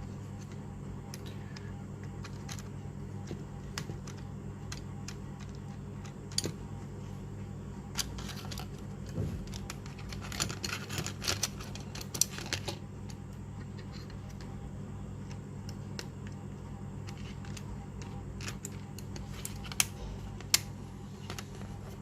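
Scattered small plastic clicks and snaps, bunched in a quick cluster about halfway through and two sharp ones near the end, as a QMobile i5i 2019 smartphone's back housing is pressed and snapped shut. A steady low electrical hum runs underneath.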